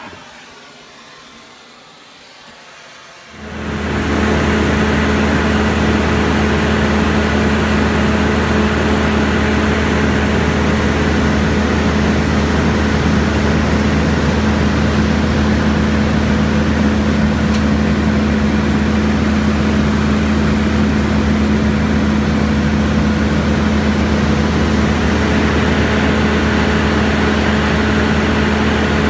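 Excavator's diesel engine running loud and steady at a constant speed, close by. It comes in suddenly about three and a half seconds in, after a quieter start.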